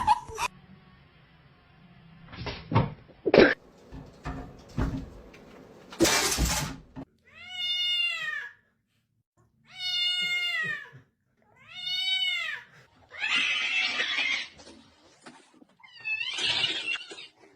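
A cat meowing: three long, drawn-out meows about two seconds apart, each rising and then falling in pitch, followed by two rougher, noisier cries near the end. Before the meows come a few knocks and a short burst of noise.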